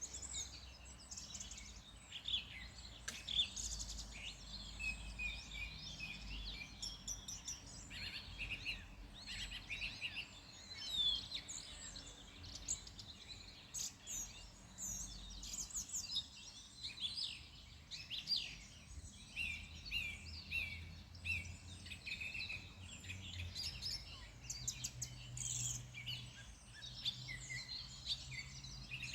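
Several songbirds singing and calling at once, a dense mix of quick chirps and short whistled phrases that overlap without pause, over a faint low rumble.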